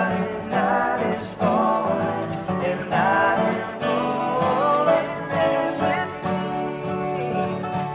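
Acoustic guitars played together, chords strummed in a steady rhythm with a melody line of sliding, wavering notes on top.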